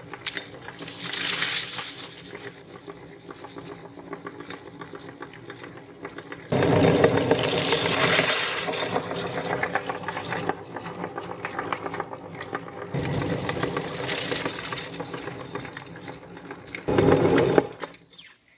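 Electric meat grinder motor running with a steady hum while it grinds Chocos chocolate cereal, growing louder and crunchier in three stretches as the cereal goes through. The motor stops near the end.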